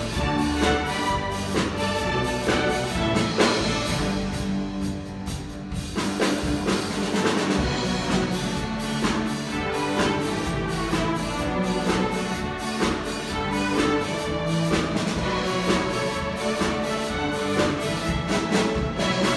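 Student string orchestra of violins, cellos and double basses playing a pop-song arrangement with a steady driving beat, thinning briefly to the lower strings about four to six seconds in.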